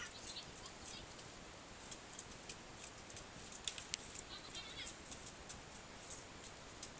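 Faint outdoor background with scattered light ticks and, about four seconds in, a few faint, high, short calls.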